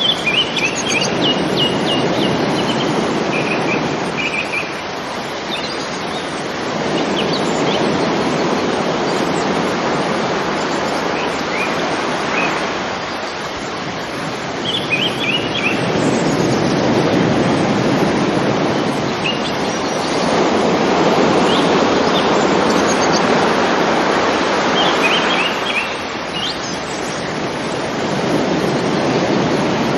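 River water flowing over rocks, a steady rush that swells and eases every few seconds. A small bird chirps briefly a few times over it.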